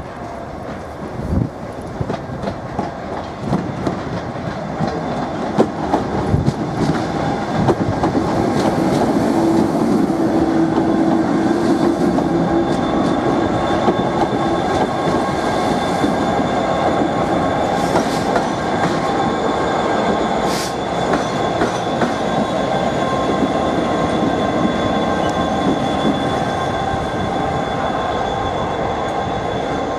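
Train running past close by, its wheels knocking over rail joints with a steady high whine. It grows louder over the first ten seconds or so and then holds.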